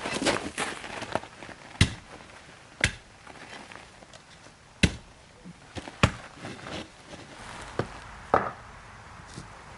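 A series of sharp, irregular knocks and clacks, like hard objects being set down or struck, with about six louder ones spaced a second or so apart.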